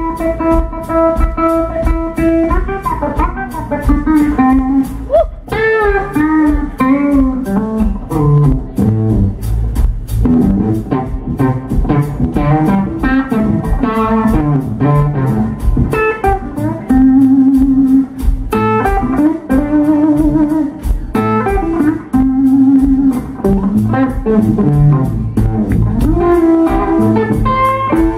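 Live blues band playing instrumentally: an electric guitar solos over bass guitar and drums, with bent notes and long notes held with a wide vibrato.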